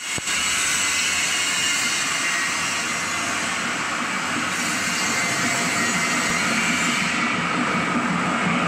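Plastic screw conveyor running: its electric gear motor and turning screw give a steady mechanical whir with a strong hiss.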